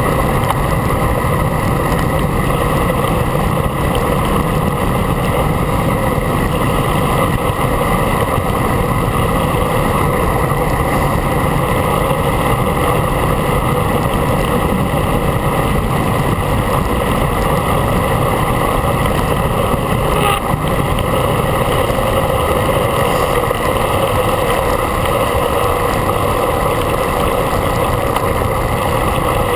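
Steady wind rush over the microphone of a camera mounted on a road bike moving at speed, loud and unbroken throughout.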